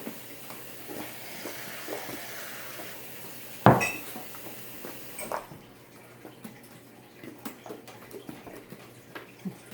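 Tabletop clatter of bowls and utensils: a low hiss at first, one sharp knock a little under four seconds in, the loudest sound, then scattered light clicks.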